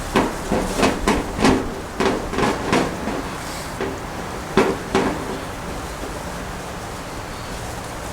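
Light metal clicks and knocks as a grill door handle and its screws are handled and fitted: a quick run of about ten in the first three seconds, then two more around five seconds in.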